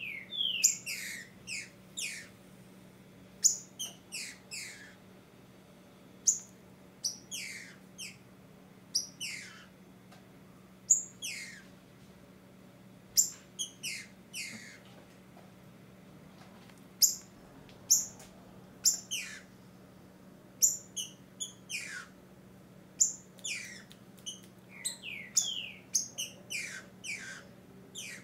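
Female green-winged saltator (trinca-ferro) giving short, high calls that slide downward, singly and in quick clusters of two or three every second or two. These are the calls of a female soliciting mating.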